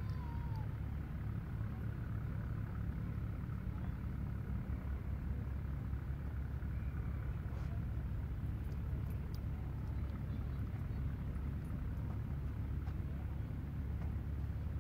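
Steady low outdoor rumble with no clear events, only a few faint high chirps.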